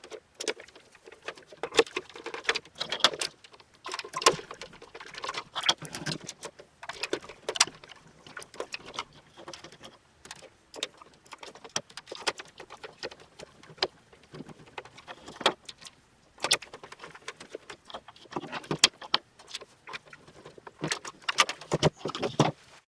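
Irregular small clicks, taps and rattles of hard plastic toy parts and small screws with washers being handled and fitted while the Armatron's casing is put back together.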